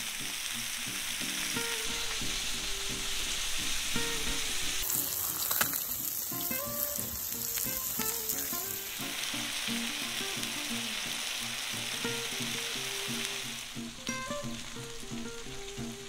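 Food sizzling as it cooks, a steady frying hiss, under light background music with plucked, guitar-like notes.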